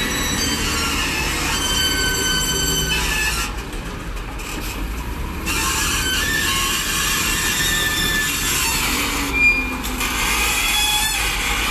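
LTMG LT955 wheel loader's diesel engine working under load as it scoops gravel, carries the raised bucket and tips it into a dump truck, with high steady squeals coming and going. A sudden loud crash about nine and a half seconds in as the load drops into the truck.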